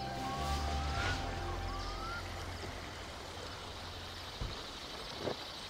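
Film soundtrack music fading out over the first two seconds, with two short rising whistled notes, giving way to steady river ambience of flowing water. Two soft knocks come near the end.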